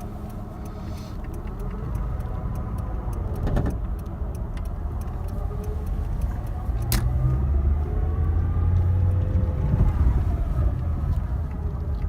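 Daewoo Lanos with a worn clutch release bearing humming very strongly as the clutch is let out and the car drives, the hum and engine note swelling and gliding in pitch, loudest near the end. Two sharp clicks come in the middle. The hum is the sign of a failing release bearing, and the owner suspects the clutch disc is worn too.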